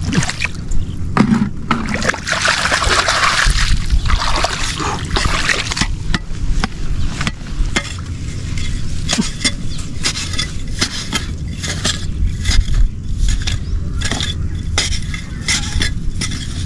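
Repeated splashing and scraping in shallow muddy water, many short sharp strokes with a denser sloshing stretch a couple of seconds in.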